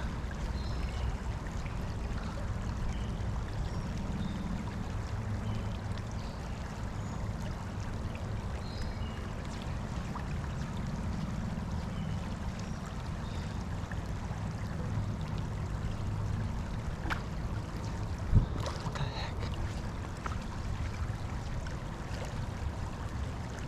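Creek water running steadily, with a single sharp knock about eighteen seconds in.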